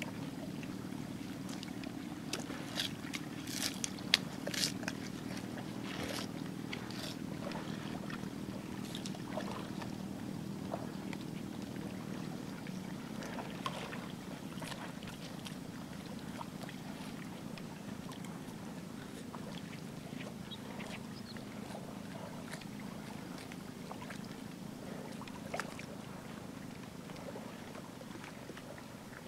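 Swamp buffalo feeding in shallow water, with irregular sharp clicks and splashes, loudest a few seconds in, over a steady low motor-like drone.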